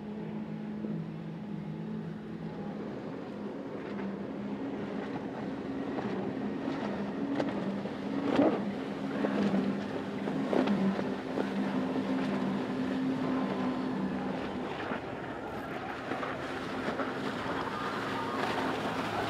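Motorboat engine running steadily with a low drone, over wind and water noise, with a few sharp knocks about halfway through.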